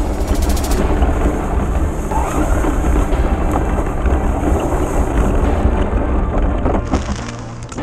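Heavy rumbling, rushing noise picked up by a camera riding on a Traxxas Slash 4x4 RC truck as it drives over dry leaves and dirt, with a few sharp clicks in the first second. The noise eases briefly near the end.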